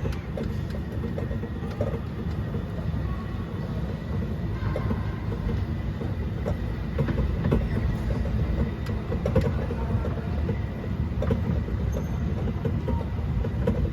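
Mall ride train running, a steady low rumble of the moving cars with scattered light clicks and rattles, and a faint steady high whine underneath.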